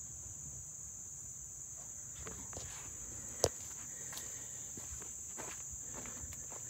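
Steady, high-pitched chorus of insects, with faint scuffs of the camera being handled and one sharp click a little past halfway.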